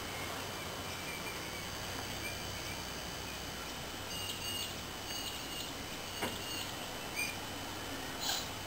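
Steady outdoor background noise with a low hum under it, faint high bird chirps, and a few short clicks in the second half.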